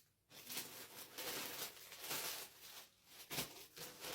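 Packaging being handled: rustling and crinkling of plastic wrap and items, uneven and continuous.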